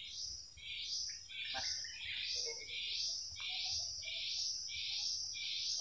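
A wild animal calling in the swamp forest: a high, buzzy pulse repeated evenly about twice a second, with a few faint knocks about a second and a half in.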